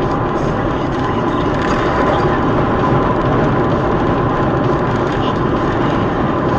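Steady, loud road and engine noise of a car driving in traffic, picked up by a dashcam inside the car, with a faint steady whine.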